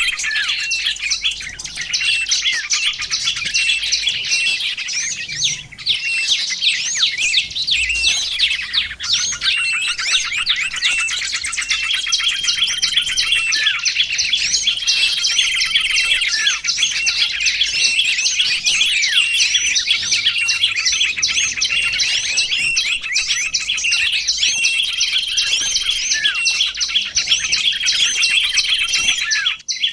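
Small songbirds chirping and trilling rapidly and without pause, several voices overlapping, with a held whistled note that comes back every few seconds; a bird-lure recording. The sound breaks off briefly near the end.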